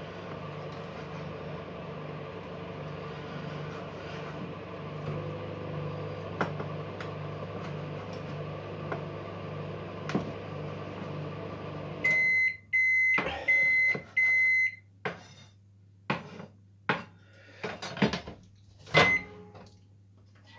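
Microwave oven running with a steady, pulsing hum while it melts a tub of chocolate. About twelve seconds in it stops and beeps four times to signal the cycle has finished. A series of clicks and knocks follows, the loudest near the end.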